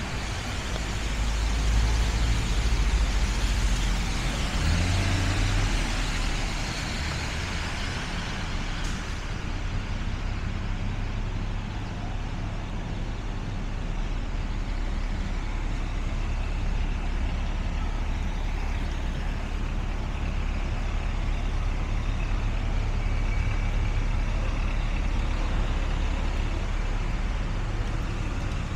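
City street traffic on a wet road: vehicle engines rumbling and tyres hissing, loudest for a few seconds starting about a second in.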